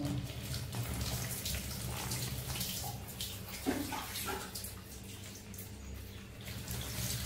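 Water splashing and trickling as a baby monkey is bathed, with water poured over it from a plastic dipper; it grows louder again near the end as a dipperful is poured. A brief pitched sound comes about four seconds in.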